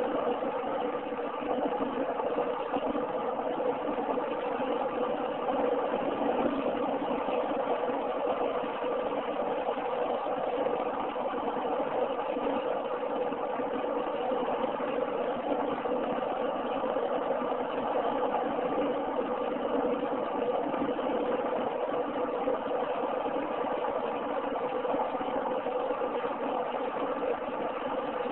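Steady cabin noise of a car driving on a paved highway: engine drone and tyre hum heard from inside the car.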